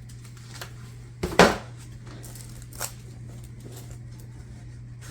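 A brief rustle and scrape of the speaker's box and packing being handled about a second in, then a light click, over a steady low hum.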